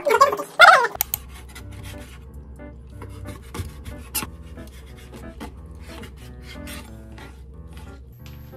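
Light background music of short notes at changing pitches, with a scratchy, rasping texture and small clicks over a low steady hum. The hum cuts off sharply near the end.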